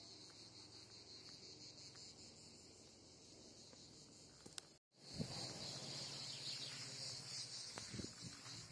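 Cicadas chirring steadily in high pitch in the summer scrub, with a brief break about halfway after which they are louder; a couple of low thumps near the end.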